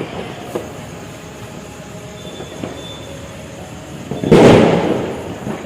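A Diwali firecracker goes off about four seconds in: one loud burst that dies away over about a second, over steady background noise with small crackles.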